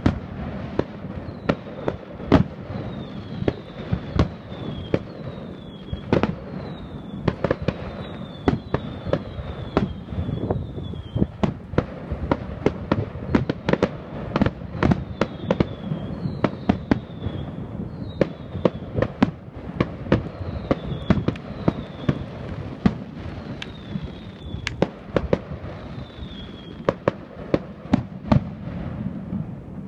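Aerial fireworks shells bursting: a long string of sharp bangs at irregular intervals, at times several a second, with short high falling whistles coming back through much of it.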